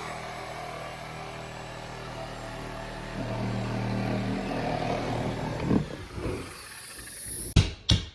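A motor hums steadily, louder for a moment midway, then winds down and stops. Near the end a rapid run of sharp knocks starts, about three a second.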